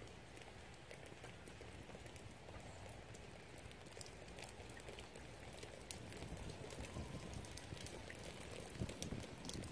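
Light rain falling, with scattered drops ticking sharply close by, over a low rumble that grows louder near the end.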